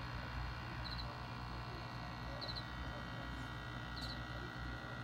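Steady low hum of aquarium aeration equipment, with a short high triple chirp repeating about every second and a half.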